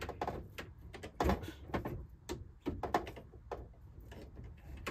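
Irregular light clicks and knocks as a brass compression fitting and water supply hoses are handled and threaded together by hand, with a duller knock about a second in.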